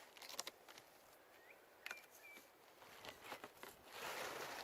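Faint rustling and scattered clicks of packaging being handled during an unboxing, with a couple of brief high chirps about halfway through and a louder rustle near the end.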